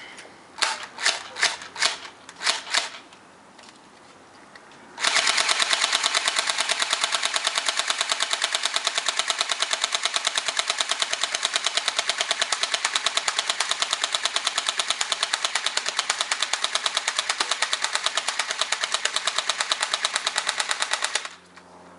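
Clear-bodied airsoft MP5 firing: several separate sharp shots, then after a short pause one long full-auto burst of rapid, evenly spaced shots lasting about sixteen seconds that cuts off abruptly near the end.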